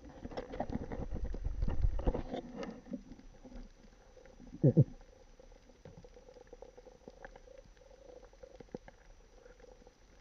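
Underwater reef sound picked up by a diving camera. Water rushes and rumbles against the housing for the first few seconds. About four and a half seconds in, a short loud sound falls quickly in pitch. Faint scattered clicks and crackles follow.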